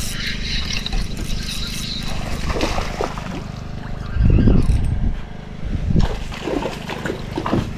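Steady low motor hum from a bass boat, with light water trickling and sloshing; a brief louder rumble comes a little past four seconds in.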